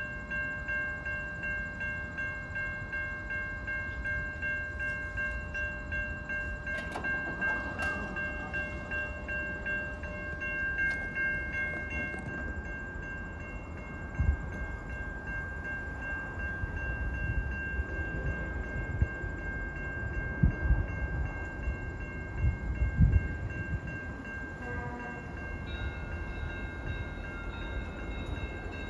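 Railway level-crossing warning bells ringing steadily in an even, quick rhythm, the signal that a train is approaching. Near the end a second set of tones joins in, and a few low thumps come through in the second half.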